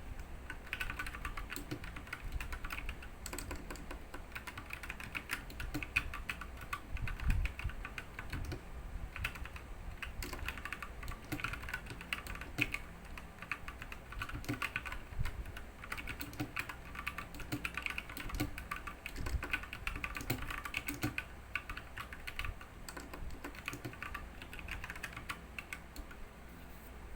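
Continuous fast typing on an RK61 mechanical keyboard with brown (tactile) switches: a dense run of keystroke clacks.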